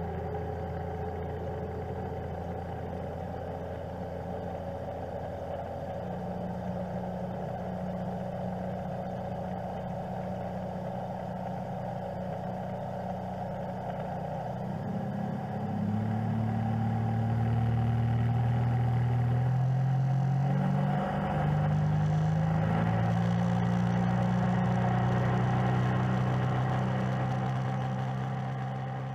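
Outboard engines of several small inflatable motorboats running past together in convoy, a few engine tones at once that shift in pitch. They grow louder about halfway through as the boats come closer.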